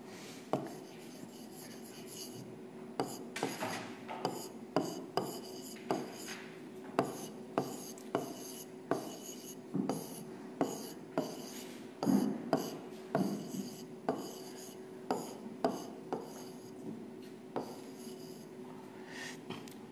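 Stylus tapping and sliding on the glass face of an interactive touchscreen display during handwriting: irregular sharp taps, about one or two a second, with faint scratching between them, over a faint steady hum.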